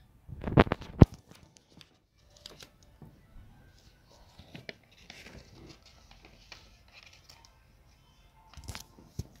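Close handling noise: a cluster of knocks and bumps in the first second, then soft, scattered rustling and crinkling of paper cutouts, with a couple more bumps near the end.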